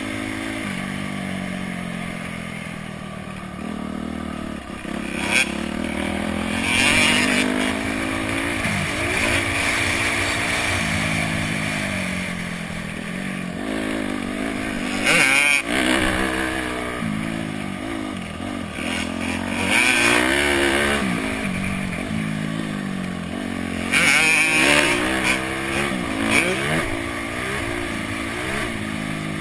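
Honda CRF250X's single-cylinder four-stroke engine being ridden hard, its pitch climbing and dropping over and over through the gears as it accelerates and backs off. A few brief noisy bursts come through along the way.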